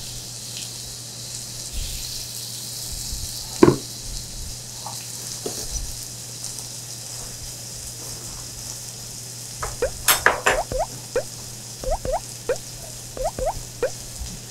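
Pork belly, whole garlic and kimchi sizzling on a grill pan, with a single knock of a utensil about three and a half seconds in. From about ten seconds in comes a rapid run of short squeaky huffs and whimpers from a man with a mouthful he can barely stand to keep in.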